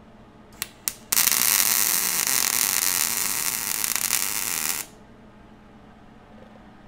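Wire-feed welder arc: two brief sputtering strikes, then a steady crackling hiss for about four seconds as a washer is welded onto a bolt head, cutting off abruptly.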